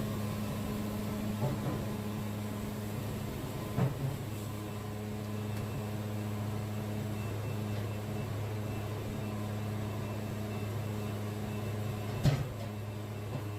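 Wood-Mizer band sawmill running with a steady low hum, with two sharp knocks, one about four seconds in and one near the end.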